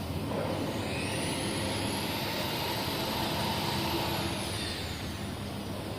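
CNC plasma cutting machine running with a steady noise, and a high thin whine that rises about a second in, holds, and falls away near the end.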